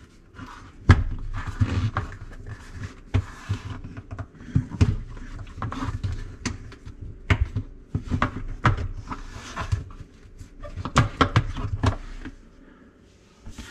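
Plastic parts of a dishwasher's filter and lower spray-arm assembly clicking, knocking and scraping as they are twisted and pried loose by hand. The clicks and knocks come at an irregular pace.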